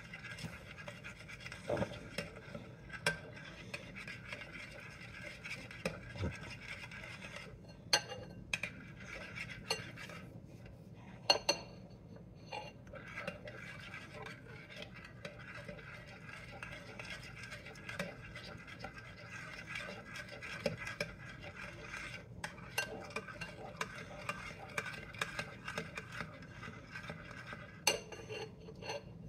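A big spoon stirring egg batter in a mixing bowl: steady scraping with scattered clicks of the spoon against the bowl.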